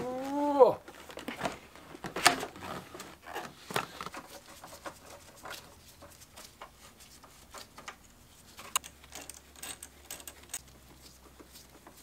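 Scattered light clicks, knocks and rattles of hand tools and metal parts as a car battery is set into its tray and fastened down with a ratchet. A brief pitched sound is heard at the start, and the sharpest knock comes about two seconds in.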